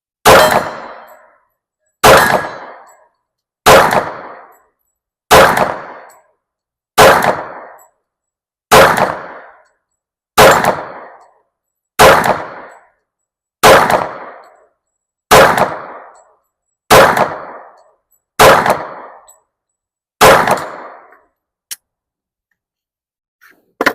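Glock 30SF .45 ACP pistol firing thirteen single shots at a slow, even pace, about one every 1.7 seconds, each shot followed by a short echo. A faint click comes after the last shot.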